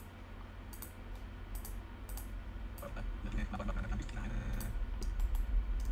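Scattered computer mouse and keyboard clicks over a low hum that grows louder in the second half.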